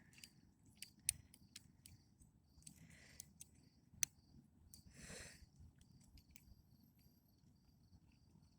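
Faint, scattered clicks and scrapes of a lock pick and tension wrench working the pins of a TruGuard door knob lock, with a sharper click about a second in and another about four seconds in.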